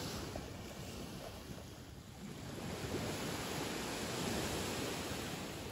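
Small surf waves breaking and washing onto a sandy beach, swelling a little about three seconds in, with wind rumbling on the microphone.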